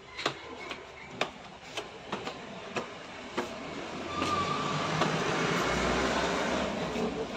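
Footsteps on concrete stairs and floor, a sharp step roughly every half second to a second. From about halfway through, a louder, steady rumbling noise builds up and then eases off near the end.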